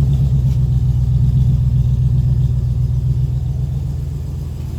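A 1995 Range Rover P38's V8 engine running steadily just after start-up, a deep even hum that eases off slightly about three seconds in.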